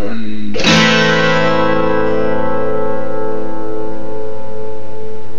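Acoustic guitar's final chord, strummed once just under a second in and then left to ring out steadily to close the song.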